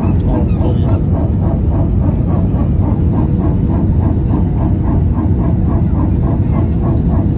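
Aircraft cabin noise: a loud, steady low rumble with a regular pulsing about three times a second, the noise in the aircraft that is heard on landing.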